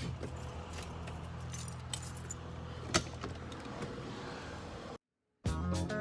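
Small clicks and jingles of keys or loose metal over a steady low hum, like a car running nearby. About five seconds in the sound cuts out abruptly and upbeat guitar music starts.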